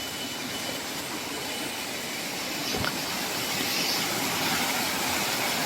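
Waterfall's rushing water: a steady hiss that grows a little louder from about three seconds in.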